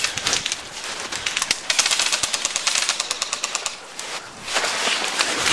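An airsoft gun firing on full auto: a rapid, even stream of shots lasting about a second and a half, starting just under two seconds in.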